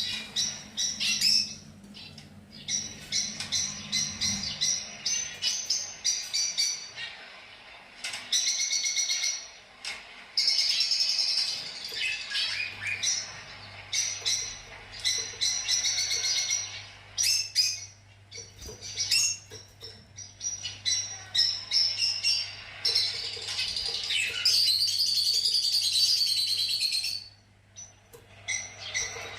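Fischer's lovebirds chattering, a dense run of shrill, rapid chirps with a brief lull near the end.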